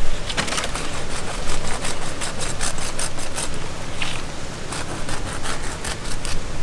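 A knife slicing and tearing through the tough wet skin and flesh of a large stingray: an irregular run of short clicks over a steady hiss.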